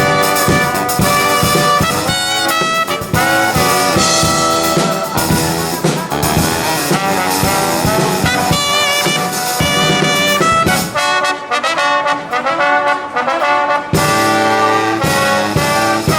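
Brass band playing an upbeat tune over a steady beat. It ends on a long held chord near the end.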